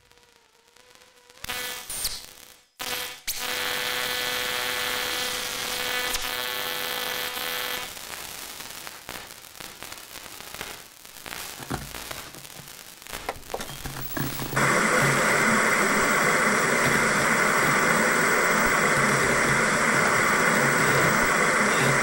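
Electrical hum and television static. After a quiet start comes a steady hum with a held tone, then uneven noise, and about two-thirds of the way in a louder, steady hiss of TV static sets in.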